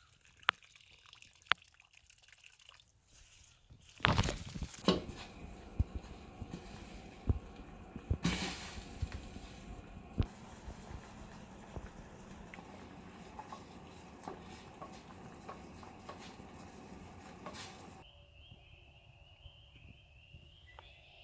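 Water sounds, splashing and dripping, with scattered sharp knocks and clicks; the sound changes abruptly several times, to a louder busy stretch about four seconds in and to a quieter sound with a steady high whine near the end.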